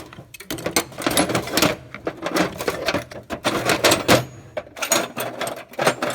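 Metal hand tools clattering and clinking as they are handled and set into a tool chest drawer: a continuous jumble of sharp rattles in quick clusters.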